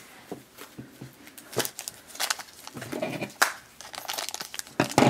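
Thin yellow LDPE plastic blind bag crinkling in the hand as it is cut open with scissors: a scatter of short crackles and snips.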